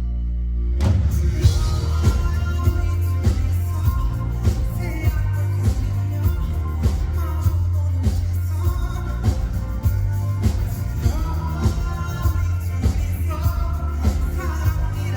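Live pop-rock band music with singing over a heavy bass and a steady beat. The full band comes in under a second in, after a brief moment of bass alone.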